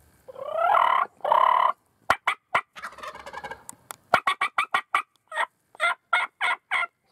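Wild turkey gobbler gobbling: a loud, rattling call in two bursts about half a second in. Then a run of short, sharp turkey calls, rapid at first and then about three a second.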